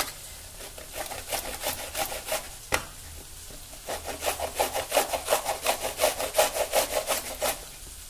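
Raw green mango being grated on a stainless-steel grater, a rhythmic rasping scrape of strokes. The strokes are faint at first, with one sharp click about a third of the way in, then come louder and steadier at about four a second through the second half.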